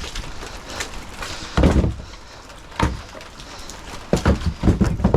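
Chunks of split firewood knocking and thudding as they are tossed onto a pile: a few knocks about a second and a half in, one more near three seconds, and a quick run of them near the end.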